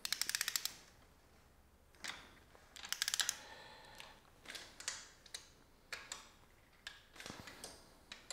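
A ratchet wrench clicking in two quick runs, at the start and about three seconds in, as intake manifold bolts are tightened down, followed by scattered single clicks and light knocks of tools on metal.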